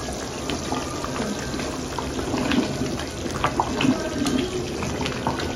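Thick tomato stew bubbling and popping in a steel pot as it boils down, with a wooden spoon stirring it partway through.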